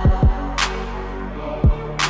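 Background electronic music. Deep drum beats fall in pitch, two close together at the start and another near the end, over sustained low notes, with a sharp hit between them.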